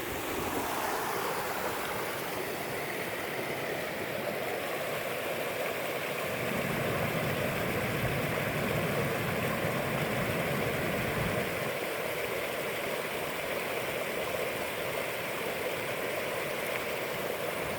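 Water pouring over a beaver dam in a steady rush, swelling slightly in the middle.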